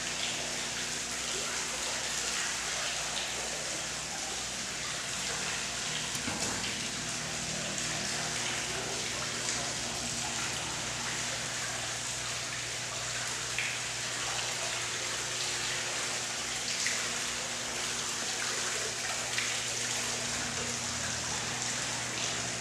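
Steady hiss of background noise, with a faint low hum underneath and a few light ticks.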